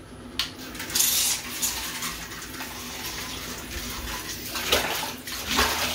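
Toy remote-control boats churning the water in a bathtub: splashing and sloshing that comes in bursts, strongest about a second in and again near the end.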